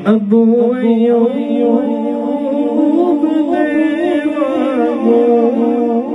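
A singing voice, vocal music, playing through a Peavey XR696F powered mixer. It comes in suddenly louder right at the start.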